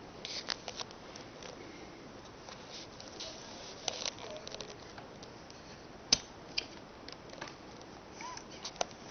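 A baby making short, quick sniffs through her nose, a deliberate sniffing noise she has learned to make. They come in small groups, with the sharpest about six seconds in.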